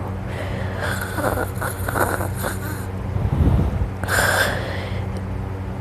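A sleeping person snoring. There is a breathy, fluttering rasp for the first few seconds, a short low rattling snore a little past three seconds, then a hissing breath about four seconds in, all over a steady low hum.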